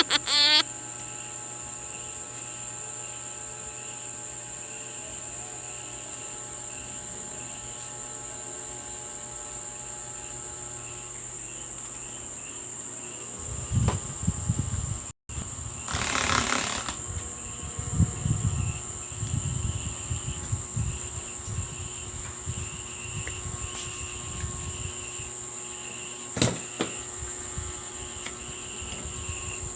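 Steady high insect chirring with a pulsing chirp running under it. From about halfway on, soft handling bumps and rustles, and a sharp click near the end.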